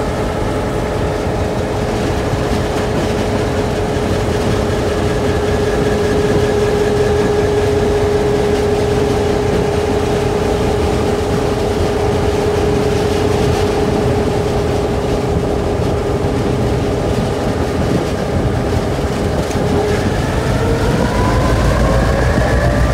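A GM-EMD two-stroke diesel locomotive engine running at a steady pitch under way. About twenty seconds in, its note begins to rise as the engine revs up.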